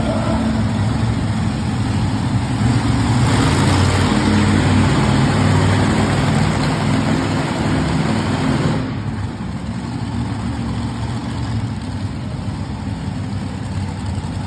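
Monster truck engine running with a steady low drone, easing off a little about nine seconds in.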